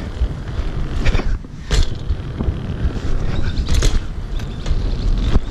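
BMX bike rolling over wooden deck boards: a continuous low rumble of tyres and wind buffeting the microphone, with rattling and a few sharp knocks, about a second in, near two seconds and near four seconds.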